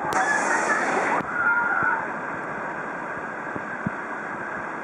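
River rapid rushing steadily in whitewater, with a louder burst of splashing for about the first second.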